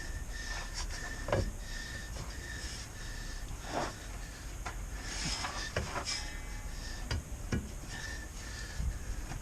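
Hand work on a truck's driveline during a U-joint replacement: scattered light knocks and clicks with rubbing and scraping as parts are handled and cleaned.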